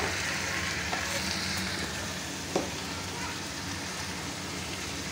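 Okra, onions, and freshly added chopped tomatoes and garlic sizzling steadily as they fry in hot oil in a metal pan. A single short knock sounds about halfway through.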